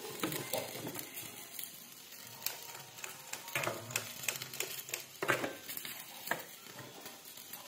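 Hands mixing sliced okra with besan and cornflour in a steel bowl: soft rustling of the coated slices, with scattered light clicks and knocks against the bowl.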